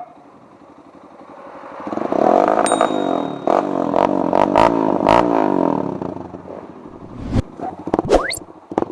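Motorcycle engine with an Akrapovic muffler on a big elbow pipe, idling, then revved hard several times from about two seconds in, pitch climbing and falling. Sharp pops crack out among the revs and twice more near the end: the engine is still backfiring.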